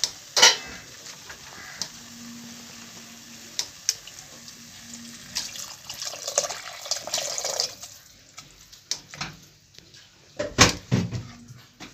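Water poured from a jug into a steel pot of cooked-down tomatoes, splashing into the pot about six seconds in. Near the end come a few sharp knocks as the mixture is stirred with a wooden spatula.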